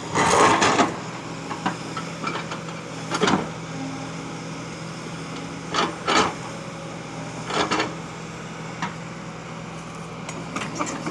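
Excavator engine running steadily, with loud scraping knocks of the steel bucket against stone: a long one at the start, then shorter ones about every two to three seconds.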